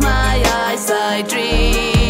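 A pop song playing: a singing voice over a steady drum beat and bass.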